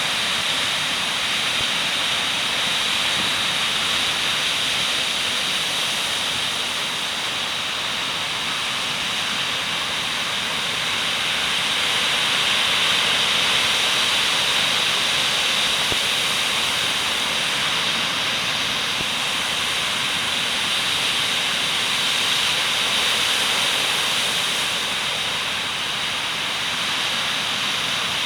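Steady roaring hiss of a violent coastal storm, with wind-driven rain and heavy surf blending into one continuous noise that swells and eases gently.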